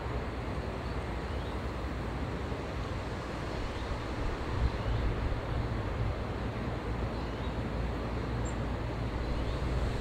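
Steady outdoor background noise: a low rumble under an even hiss, with a few faint, short high-pitched notes.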